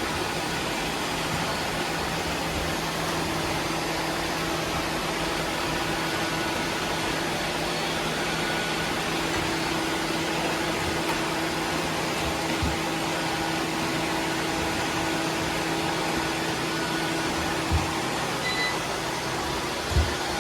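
Several robot vacuums running at once: a steady whirr of their suction fans and brush motors, with a few steady hums mixed in. A couple of low thumps come near the end.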